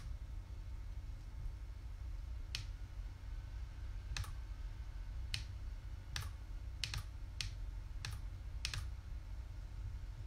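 Sparse, irregular clicks of someone working at a computer, about nine sharp taps spread over several seconds, over a steady low hum.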